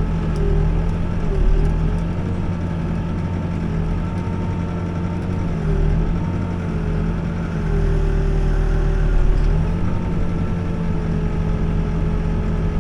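Backhoe diesel engine running steadily at working speed, its note dipping briefly and recovering several times as it takes load.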